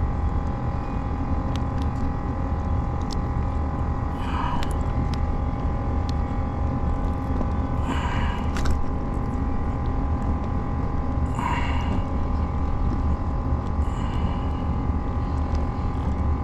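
A steady low rumble with a constant hum over it. Three short rustling sounds come about four, eight and eleven seconds in.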